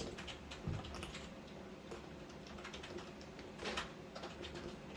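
Light, irregular clicks and taps of metal door-handle hardware and a screw being handled while the screw is lined up to start.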